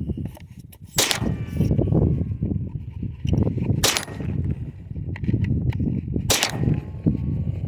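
Three pistol shots, roughly two and a half to three seconds apart, the first and last followed by a brief ringing. Wind rumbles on the microphone throughout.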